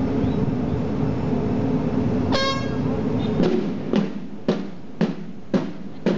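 Naval marching band's drums beginning a steady marching beat, about two strokes a second, from about three and a half seconds in, after a stretch of steady outdoor rumble. A short horn toot sounds about two and a half seconds in.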